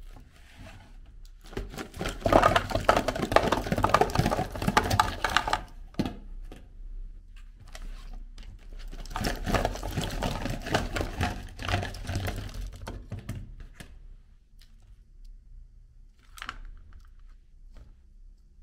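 Small plastic jelly cups clattering together as a bowlful is tipped out onto a tray, in two long rattling pours, followed by sparser light clicks as cups are handled and picked up.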